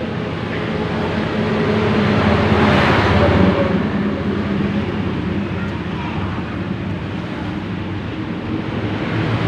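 Road traffic: a motor vehicle's engine running past, swelling loudest about three seconds in, over a steady background of traffic noise.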